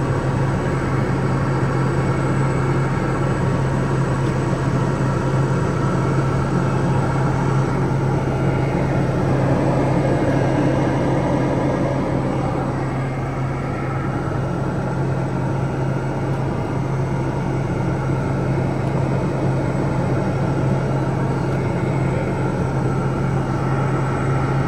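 Piper Meridian's Pratt & Whitney PT6A turboprop engine and propeller droning steadily as heard inside the cockpit, a constant low hum over a rushing noise of airflow.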